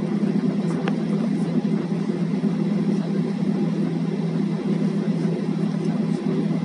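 Airliner cabin noise heard from inside the cabin: the jet engines and airflow make a steady, even noise as the aircraft taxis on the ground.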